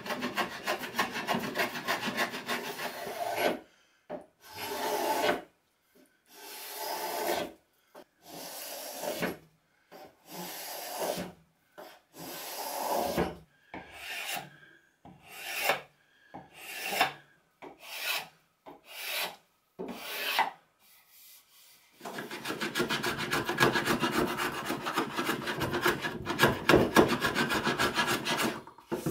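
Hand plane cutting shavings from the ash mallet handle stock, a continuous scraping rasp. In the middle comes a spokeshave, about a dozen separate short strokes roughly a second apart that grow shorter, before steady planing resumes for the last seven seconds or so.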